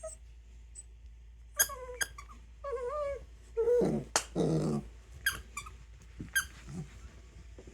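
A dog making strange wavering whines and low grumbling noises, mixed with short sharp squeaks from a squeaky toy she is chewing. The noises come in a burst in the middle, with quiet before and after.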